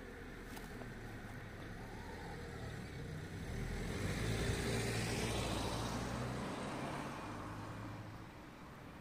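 A motor vehicle passing by out of sight: engine hum and tyre noise swell to a peak about halfway through, then fade away.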